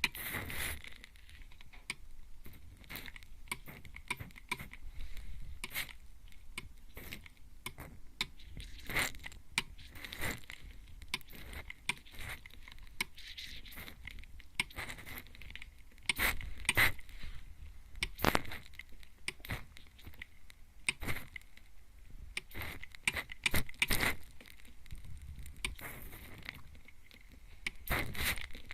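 Mist spray bottle sprayed onto the ear of a binaural microphone: short, irregular hissing sprays every second or so, some louder than others, with light crackling and patter between them.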